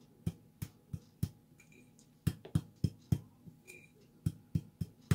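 Glass jar packed with cut tobacco being knocked against the palm to settle the tobacco: dull knocks in three sets of about four, roughly three a second, with short pauses between sets.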